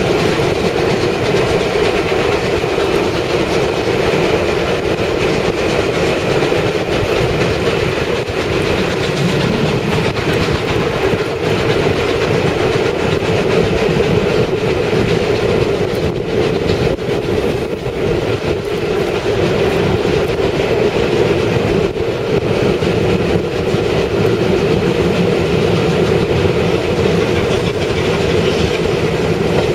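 Train running steadily along the track: a continuous, even rumble with wheels clattering over the rails.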